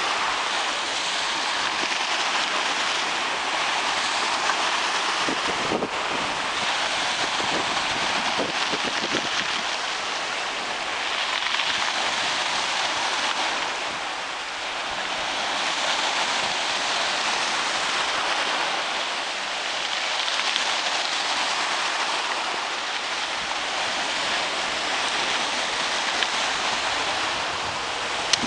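Sea surf washing onto the shore, a steady hiss that swells and eases every few seconds as the waves come in and draw back.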